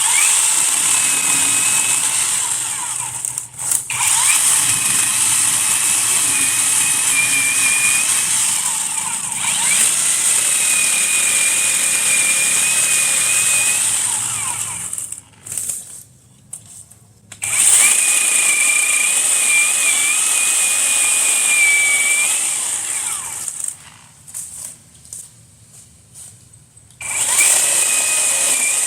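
Battery-powered chainsaw running and cutting brush, a high electric whine whose pitch sags now and then as the chain bites. It stops twice, about halfway through and again a few seconds before the end, starting up again each time.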